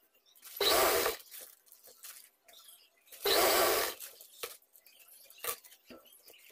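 Sewing machine stitching in two short bursts, each about half a second, a few seconds apart, with faint clicks between them.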